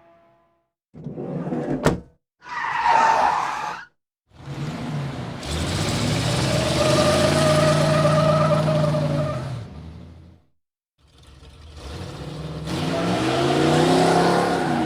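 A run of separate car sound effects split by short silences: a brief engine burst ending in a sharp click, a short burst of noise, then a car driving past with a steady engine note for about six seconds. Near the end another car comes in with its engine pitch rising.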